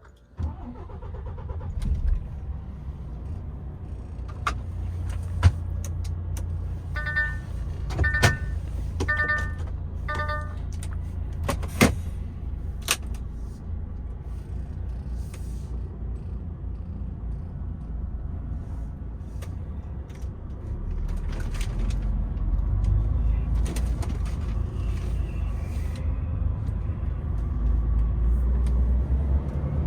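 DAF XF truck's diesel engine heard from inside the cab: it comes in suddenly about half a second in and runs with a steady low rumble. Sharp clicks sound now and then, and four short electronic beeps come around a third of the way through. The engine grows louder and deeper near the end.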